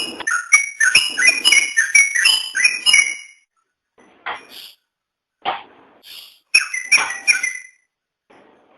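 Trucukan (yellow-vented bulbul) singing: a fast, bubbly phrase of whistled notes for about three seconds, a couple of single notes, then a second shorter phrase near the end.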